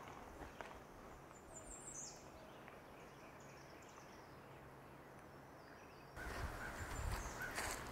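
Quiet outdoor ambience with small birds chirping, high and thin, about two seconds in. About six seconds in, a louder rushing noise with deep rumble sets in abruptly, and a bird gives short repeated calls over it.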